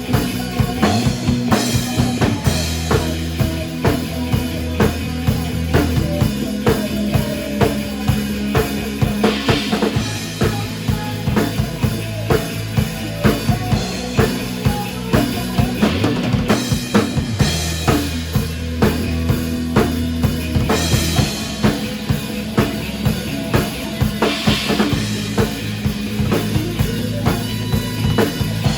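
Band music driven by a drum kit playing a steady beat of kick and snare, over sustained bass notes.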